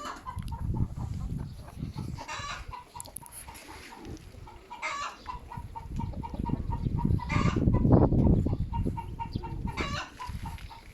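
Gusty wind buffeting the microphone in swelling rumbles, strongest about two-thirds of the way through, while a bird calls in short bursts about every two and a half seconds.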